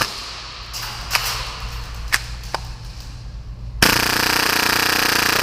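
Tank-fed full-auto Tokyo Marui Hi-Capa airsoft pistol: a few isolated sharp clicks, then nearly four seconds in a loud continuous rapid-fire burst at a rate of about 30 rounds per second.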